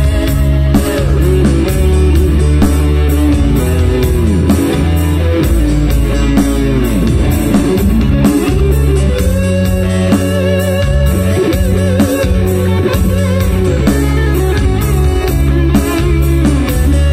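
Loud live instrumental music over a PA: an electric guitar lead with bent and wavering notes over heavy bass and a quick, steady beat.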